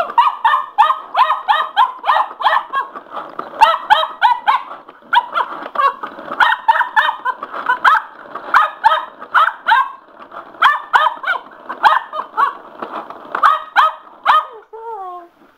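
Cocker spaniel pup barking excitedly, quick high yapping barks about three a second in runs with short pauses, ending in a falling whine near the end.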